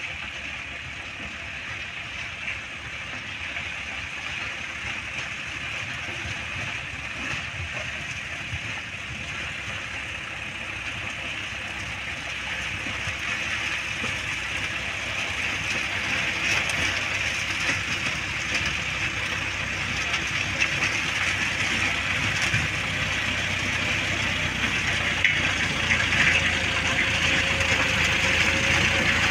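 John Deere 5210 tractor's diesel engine working under load as it pulls a 6-foot rotavator through dry soil, with the tines churning. A steady drone that grows louder as the tractor comes closer.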